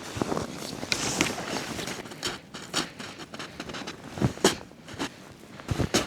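Footsteps crunching through snow, uneven steps a half second to a second apart.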